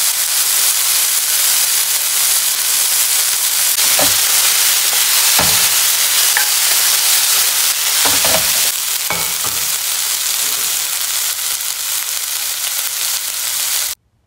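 Minced pork and eggplant sizzling in a nonstick frying pan as a wooden spatula stir-fries it, with a few knocks of the spatula against the pan. The sizzle cuts off suddenly near the end.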